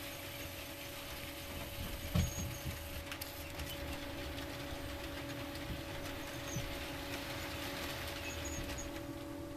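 Model New Haven Alco PA diesel locomotives running in on a model railroad layout: a steady electric hum with a faint rolling hiss and light ticks. A soft knock comes about two seconds in.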